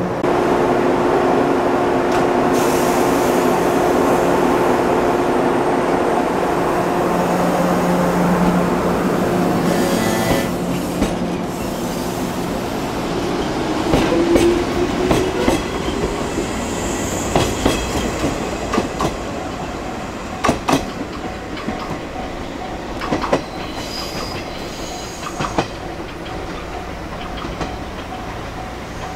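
A 413-series electric train: a steady hum while it stands at the platform, then running with its wheels clicking over rail joints and giving a few brief high squeals. The sound fades toward the end.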